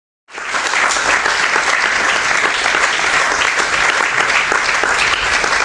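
Audience applauding, the clapping cutting in abruptly a fraction of a second in.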